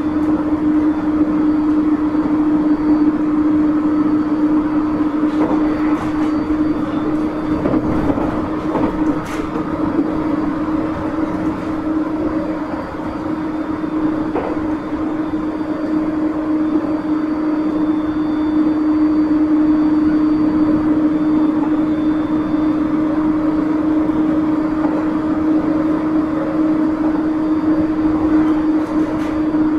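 JR 701 series electric commuter train heard from inside the car, running at a steady speed: a constant hum over the rumble of the wheels on the rails, with a few brief clicks.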